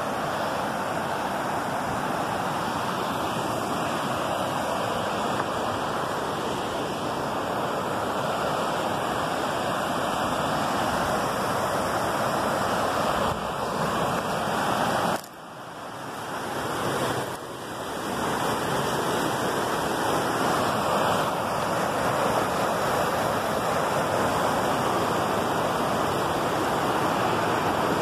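River water rushing over rocky rapids, a steady rush that drops away sharply twice around the middle before coming back.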